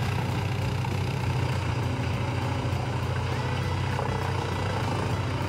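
Truck-mounted wood chipper running steadily, a deep, even engine drone with no breaks.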